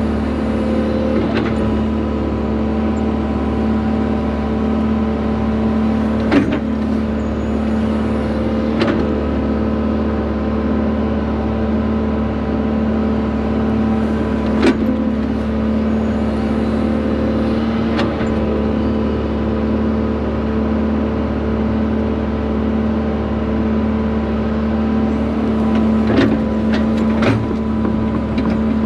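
Excavator's diesel engine running steadily under hydraulic digging load, heard from inside the cab, with a handful of sharp knocks as the toothed trenching bucket digs and dumps, several of them close together near the end.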